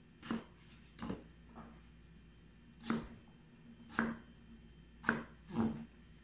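Chef's knife slicing through peeled chayote and knocking on a plastic cutting board: six separate cuts at uneven intervals, each a short knock.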